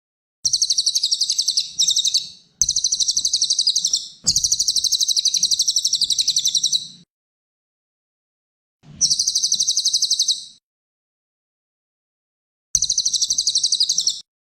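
Cililin songbird singing a high, rapid trill. It comes in several phrases of one and a half to three seconds each, about ten notes a second, with pauses of a second or two between phrases.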